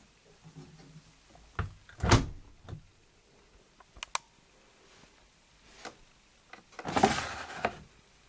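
Panasonic front-loading washing machine's porthole door pushed shut with a loud thud about two seconds in, followed a couple of seconds later by two sharp clicks. Near the end the plastic detergent drawer is slid open with a short scraping rattle.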